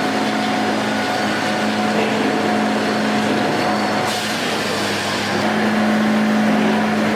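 Engine of a wood-processing machine running steadily with a constant hum, the mix of sound shifting about four seconds in.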